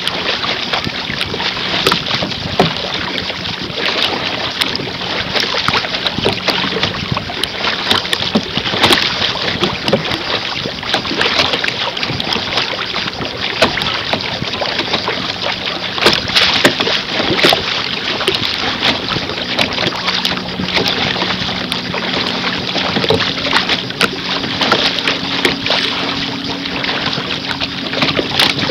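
Water rushing and slapping against the bow of a canoe moving through choppy water: a steady wash of noise broken by many small, sharp splashes.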